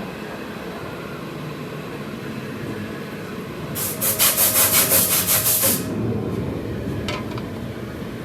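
A metalworking tool in quick rhythmic strokes, about seven a second, for about two seconds in the middle, over steady shop background noise.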